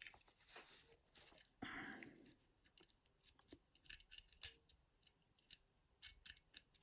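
Scattered small metallic clicks and scrapes of a lock pick and tension wrench working the levers inside a lever lock, with the loudest click about four and a half seconds in.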